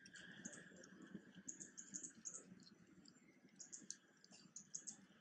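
A macaque eating a ripe mango: faint wet smacks and clicks of chewing and biting, coming in short irregular clusters. A faint steady high tone sits behind them for the first couple of seconds.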